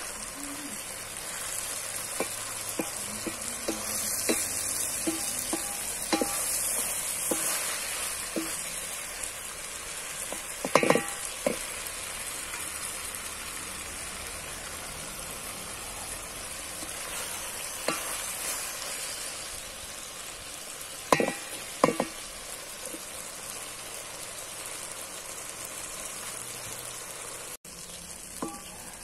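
Okra, onion and tomato sizzling in a steel pot as a wooden spoon stirs them, the dish nearly cooked. A few sharp knocks of the spoon against the pot, two close together past the middle.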